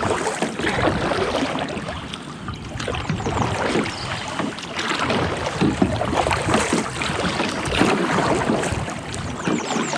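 Water splashing and rippling around a kayak as it is paddled, with irregular splashes from the paddle blades.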